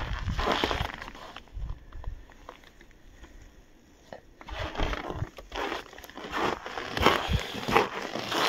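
Footsteps crunching in frozen snow. The crunches die away after about a second, there is a quiet pause of a couple of seconds, and then the steps start again at walking pace about halfway through.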